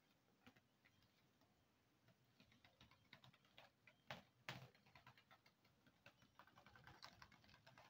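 Faint crinkling clicks from a woven polypropylene sack as its stitched seam thread is pulled out to open it; almost silent at first, the clicks start about two and a half seconds in and come thicker near the end.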